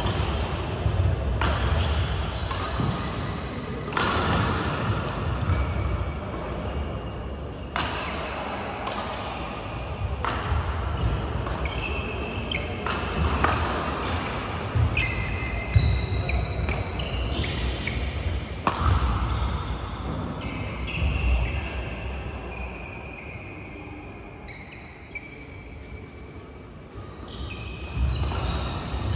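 Badminton rackets striking shuttlecocks on several courts, with short high shoe squeaks on the court mats. It gets quieter for a few seconds before picking up again near the end.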